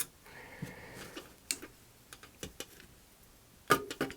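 Pliers gripping and turning the small hex jack screws on a serial port, giving scattered sharp metal clicks and taps, one louder near the end.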